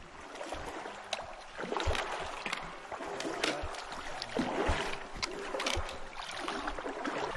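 People wading through a shallow river, feet and trekking poles splashing irregularly in the water over the steady rush of the current.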